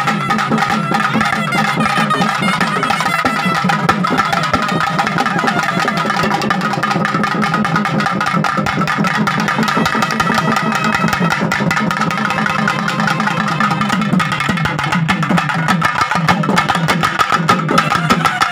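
Loud, fast, continuous drumming from a traditional festival drum ensemble, the rapid strokes running on without a break, with other instruments mixed in.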